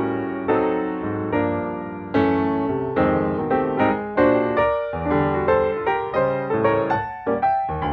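Background piano music: a gentle melody of single notes and chords, each struck and left to fade.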